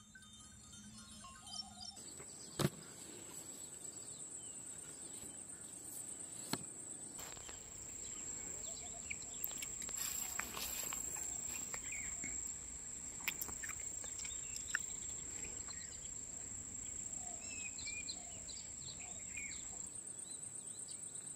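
Outdoor pond-side ambience: insects making a steady high-pitched drone, with scattered bird chirps. A sharp click comes about two and a half seconds in, and a fainter one a few seconds later.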